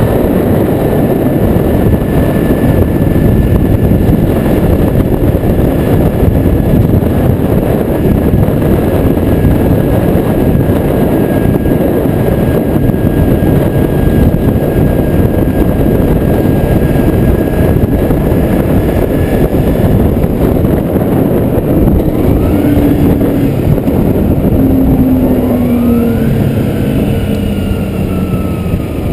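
Kawasaki Ninja sport bike being ridden, its engine note under a loud, steady rush of wind on the microphone. Near the end the engine pitch climbs a couple of times as it revs up, then falls away.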